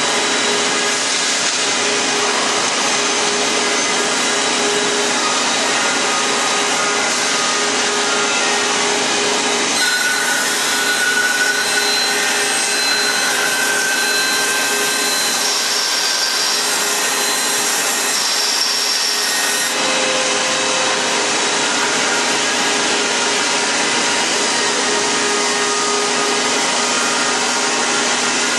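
CNC band saw running and cutting a curved chair-leg profile through a stack of wooden boards: a steady, loud sawing noise with faint steady whining tones.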